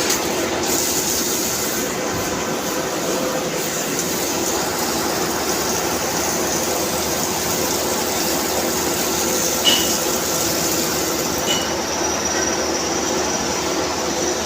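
CNC machine running steadily with a constant mechanical whir and hum, and two brief high chirps about ten and eleven and a half seconds in.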